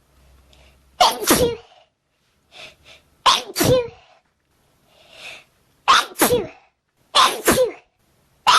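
A fit of repeated human sneezes: about four loud, sudden sneezes in quick succession, each in two quick parts. Short faint breaths come between them, and another sneeze starts at the very end.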